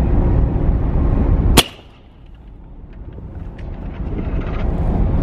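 Line-throwing gun fired once from the ship's deck, a single sharp crack about a second and a half in, sending a heaving line ashore for mooring. Wind buffets the microphone before the shot.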